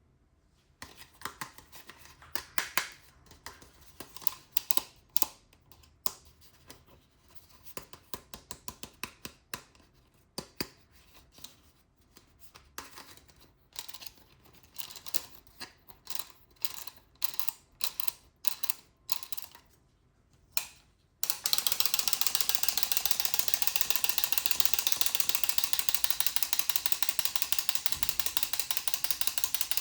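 Toy packaging and plastic pieces being handled: irregular sharp clicks and crinkles for about twenty seconds. Then a louder, dense, rapid crackling starts suddenly and keeps going.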